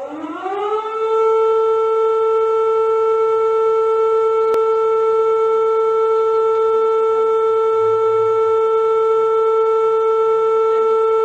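Recorded emergency alert alarm tone played back: one pitched tone rich in overtones that glides up over about the first second, then holds a single steady pitch until it cuts off abruptly.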